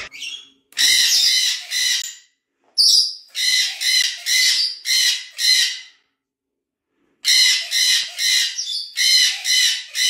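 Nanday conure screaming: runs of harsh, exceptionally loud shrieks, about two a second, broken by short pauses, with a longer break about six seconds in.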